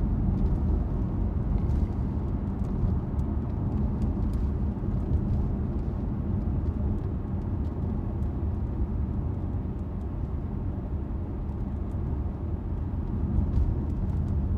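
Steady low rumble of a moving car heard from inside the cabin, with a few faint ticks and rustles over it.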